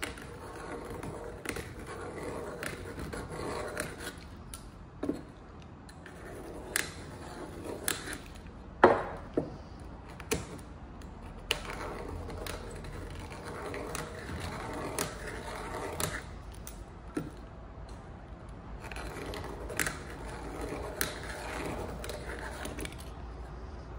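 Hand deburring tool scraping around the cut edge of a short aluminium tube in repeated rasping strokes, with sharp metallic clicks now and then.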